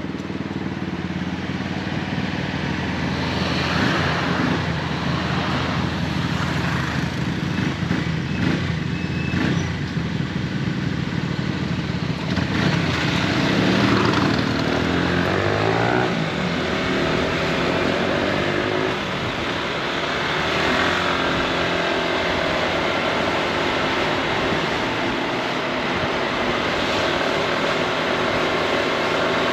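Honda ADV 350 scooter's single-cylinder engine running under way, with wind and road noise. The engine pitch rises and falls through the first half, then holds steadier.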